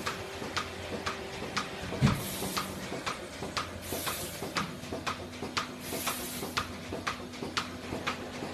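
Robotic milking machine at work while its arm attaches the teat cups: an even ticking about twice a second, typical of the milking pulsators, with short hisses of air now and then. A single loud thump comes about two seconds in, and a steady motor hum starts about halfway.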